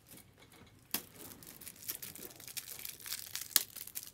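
Crinkly plastic card packaging handled, a run of sharp crackles starting about a second in, the sharpest one shortly before the end.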